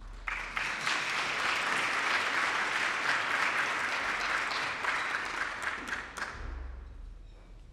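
Audience applauding a speaker being introduced: the clapping swells in right away, holds steady, and dies away over the last second or so.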